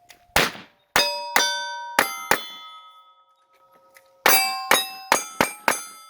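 About ten gunshots in two quick strings of five, most of them followed by the ringing of struck steel targets.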